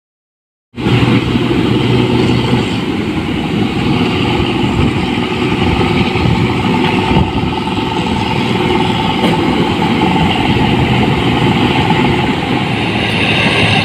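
Rice combine harvester running steadily, a loud, continuous engine and machinery noise that starts abruptly after a moment of silence.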